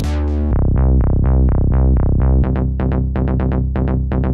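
Background electronic music: repeated synthesizer notes over a steady bass, at about four notes a second at first and quickening about halfway through.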